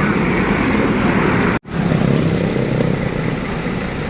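Roadside traffic: motor vehicle engines running with steady road noise, with a sudden brief cut in the sound about one and a half seconds in.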